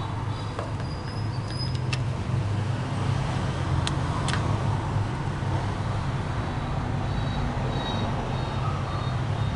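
The QZ-450 paper-cutting machine's motor running with a steady low hum, with a few sharp clicks about two and four seconds in.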